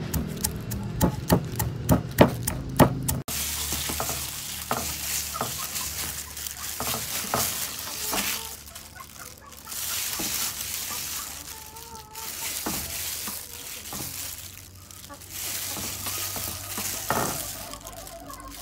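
Knife chopping on a wooden chopping board, sharp knocks about three a second. After about three seconds it cuts off and gives way to gloved hands rubbing and handling a whole fish on a metal tray, a soft uneven rustle of plastic gloves with light ticks.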